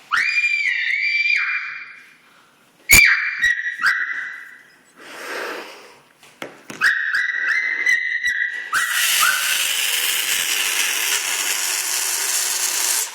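Air squealing out of a rubber balloon's stretched neck: three high-pitched squeals, each a couple of seconds long, then a longer loud rush of escaping air that cuts off suddenly near the end.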